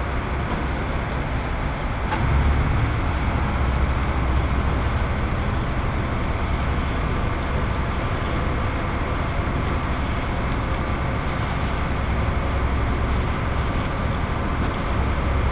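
Diesel locomotive engine running under load with the rumble of the train rolling along the rails, heard from the cab. It gets louder about two seconds in, then holds steady.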